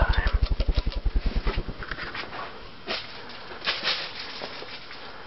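Hunter Original ceiling fan's blades beating the air in a rapid, low, even thumping, about ten beats a second, that slows and fades away within the first two seconds as the fan winds down. Faint scattered clicks and ticks follow.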